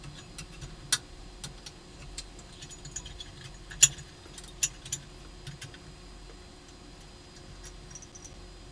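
Small metal hardware clicking and clinking as the plate cap and parasitic choke are fitted onto the top of a 3-500Z transmitting tube in an amplifier chassis. The clicks are scattered, with the loudest about four seconds in and fewer after about five seconds.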